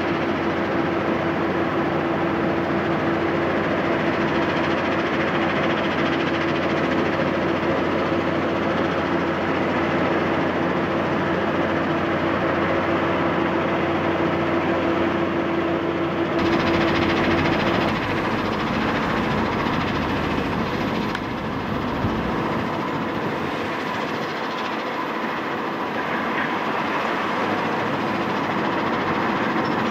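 Mobile stone crushing and screening plant running: a steady, loud mechanical din of diesel engines, conveyors and vibrating screens. A steady hum sits over it for the first half or so, and the sound shifts abruptly a little past halfway.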